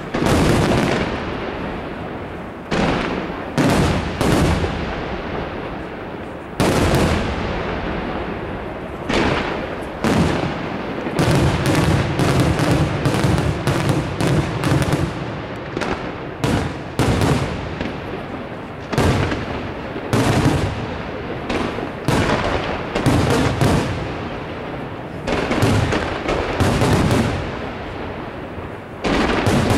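Aerial firework shells from a La Rosa Artist Fireworks display bursting overhead with sharp booms. They come a second or two apart at first, then build about a third of the way in to a dense barrage of overlapping bursts over a low rumble.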